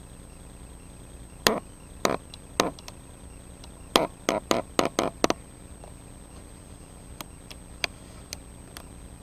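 Footsteps on a steel grating walkway: a series of sharp metallic clacks, three evenly spaced, then a quicker cluster of about six, then a few fainter ones near the end.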